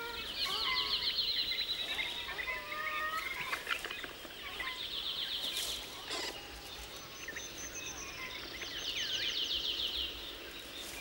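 Forest birdsong: a rapid high trill repeated in several bouts of one to two seconds each, with short whistles and chirps between them.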